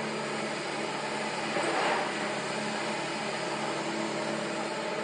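Liebherr crawler excavator's diesel engine running steadily, with a brief louder rush of noise about one and a half seconds in.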